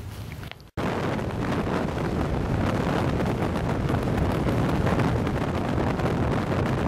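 Wind rushing over the microphone, with road noise from a car travelling at highway speed: a loud, steady rush that starts abruptly just under a second in, after a moment of fainter outdoor ambience.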